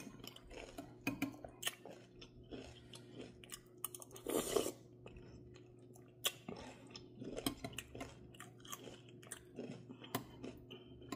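Close-up chewing and crunching of soup with crisp wonton strips, with sharp clinks of a metal spoon against a glass bowl scattered throughout and one louder noisy burst about four and a half seconds in.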